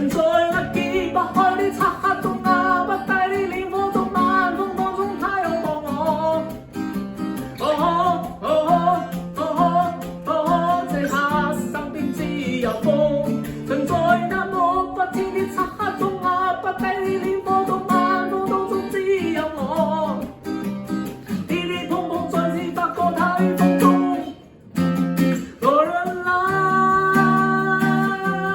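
A voice singing a Cantonese pop song to a strummed acoustic guitar. Near the end the music breaks off briefly, then comes back with a long held note.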